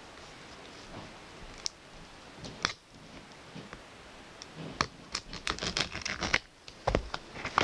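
Plastic Blu-ray case and its wrapping being handled and pried open: scattered sharp clicks and scratching, turning into a quick run of clicks and scrapes in the second half.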